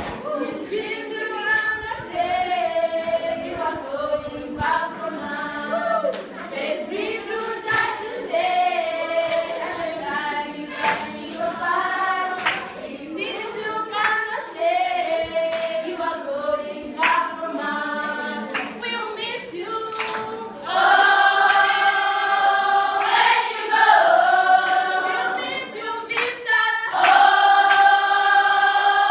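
A choir of schoolgirls singing a farewell song together unaccompanied, with scattered sharp claps. About two-thirds of the way through the singing grows louder, on long held notes.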